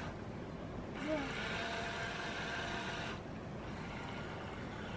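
Small electric motor of a radio-controlled toy boat whining as it runs across the water; the high whine stands out from about a second in and drops away about three seconds in.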